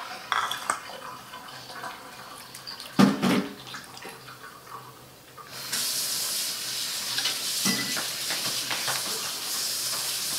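Homemade borax-and-glue slime (gak) being squished and kneaded by hand against a granite countertop: wet squelching and crackling, with a louder squelch about three seconds in and a steady crackling hiss from about halfway through.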